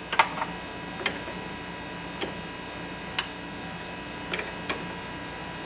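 Sharp metallic clicks and taps, about seven of them at uneven intervals, from a four-jaw lathe chuck being turned and its jaws adjusted by hand while the cast governor housing is trued against a dial indicator. A steady electrical hum runs underneath.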